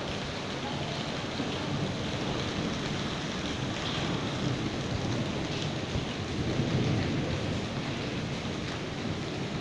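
Hailstorm: hail and rain falling steadily on paving and leaves, a dense, even rush of noise that swells a little about seven seconds in.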